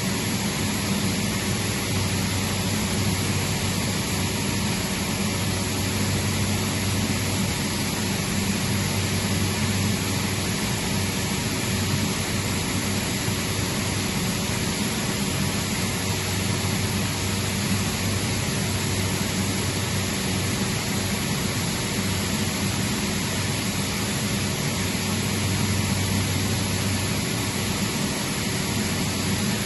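Atlas Copco GA160FF oil-injected rotary screw air compressor running steadily: an even rushing noise over a low hum, with no change in load or speed.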